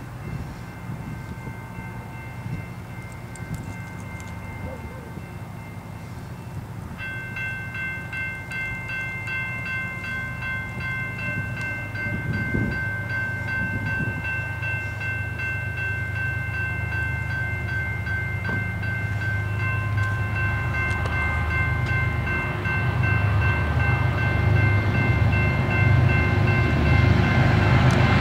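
BNSF freight train's diesel locomotives approaching, their low rumble growing steadily louder. About a quarter of the way in, a steady high-pitched ringing tone starts suddenly and holds on.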